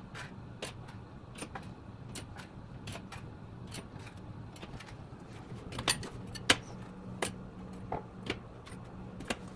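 Metal cookie lifter clicking and clinking against a sheet pan and a wire cooling rack as cookies are lifted across, a string of irregular light taps with a few sharper clinks about two-thirds of the way in. A low steady hum runs underneath.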